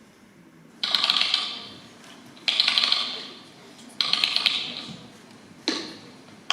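Clockwork wind-up ratcheting: three bursts of rapid clicking about a second and a half apart, each ringing away, then a single sharp click near the end.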